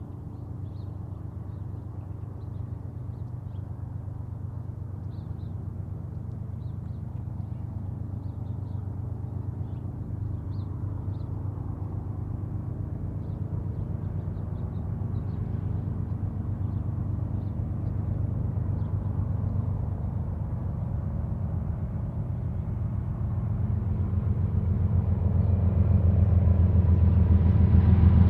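Low, steady diesel engine drone from the approaching freight train's lead BNSF GE locomotives. It grows louder throughout and swells most in the last few seconds as the train nears.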